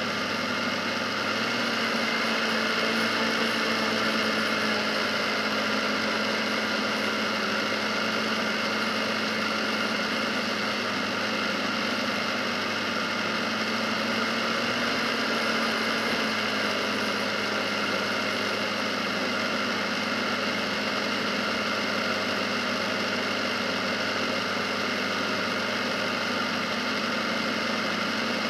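Polaris Sportsman 570 ATV's single-cylinder engine running steadily at cruising speed, under a steady rush of wind and tyre noise on pavement. The engine note and loudness rise a little about a second and a half in.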